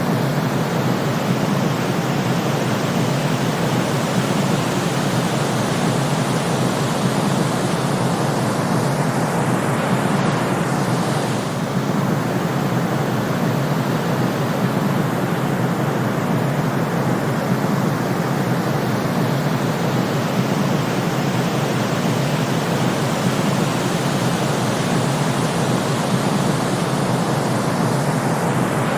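Steady white noise: an even, unchanging hiss with a deep, full low end, like a white noise machine. There is a slight dip in level about eleven seconds in.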